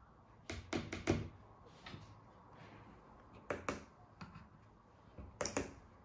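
Sharp small clicks of push buttons being pressed on an RF relay receiver board and its remotes during pairing, coming in short clusters: several about a second in, a pair around three and a half seconds in, and another pair near the end.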